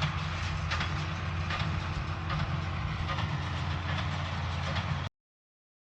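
Tractor and small square hay baler running, with steady engine hum and a rhythmic knock about once a second from the baler's plunger strokes; the baler has lost a plunger guard, and its sound is taken by the owner as a sign it may be finished. The sound cuts off suddenly about five seconds in.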